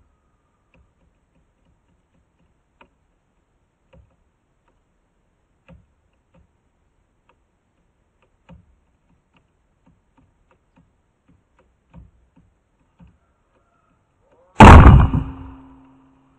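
Dry ice bomb: a plastic bottle in a hollowed pineapple bursting from the pressure of the carbon dioxide gas, one very loud bang near the end that dies away over about a second. Before it, a few faint scattered clicks.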